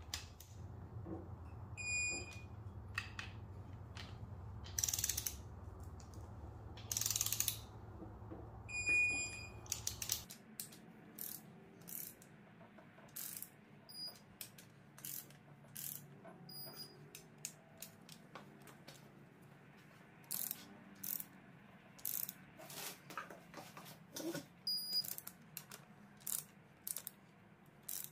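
Digital torque wrench ratcheting Audi 2.0T cylinder head bolts down to the first-stage 50 Nm, in strokes of clicking, with a short high beep every few seconds as each bolt reaches the set torque. A low steady hum underneath stops suddenly about a third of the way in.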